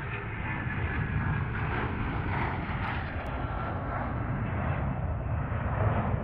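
Jet airliner engines running as a plane passes close by, a steady dense rumble with a faint whine in it.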